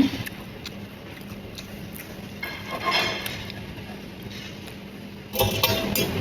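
Eating sounds with utensils clicking against dishes: scattered light clicks, a short knock at the start, a noisy stretch about three seconds in, and a louder, busier clatter from about five and a half seconds in.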